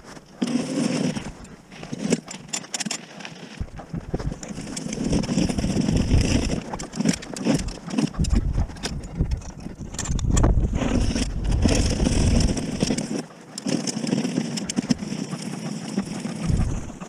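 Steel blade of a wheeled push snow plough scraping and grinding over frozen, hard-packed snow on pavement, its two knobby tyres rolling, in uneven surges as it is shoved forward. Mixed in is the pusher's heavy, gasping breathing through a face mask from the exertion.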